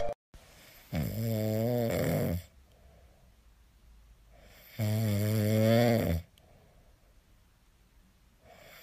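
Small brown poodle snoring in its sleep: two long, wavering snores, each about a second and a half, roughly four seconds apart.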